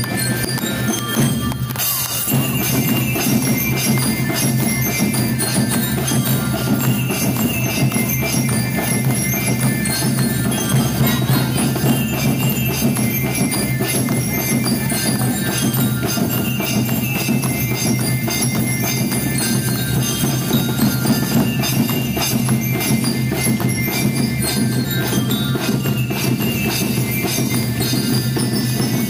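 School rhythm band playing live: bell lyres (marching glockenspiels) ring out a melody over a steady beat of drums, including a bass drum.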